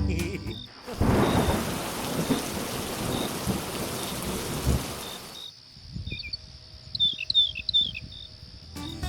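Rain falling hard with low thunder rumbling, which cuts off suddenly about five and a half seconds in; after it, a quieter stretch with a few short high chirps.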